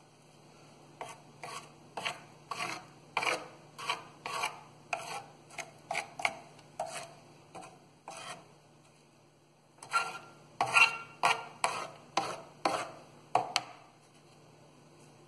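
A thin pointed tool combing soil out of a seedling's root ball, in short scratchy strokes about two a second. The strokes pause briefly past the middle, then resume louder for a few seconds before stopping.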